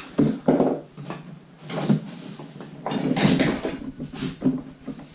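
Knocks, clatter and a short scrape of a hand tool working on a plastic plumbing part that is hard to cut. The longest, loudest scrape comes about three seconds in.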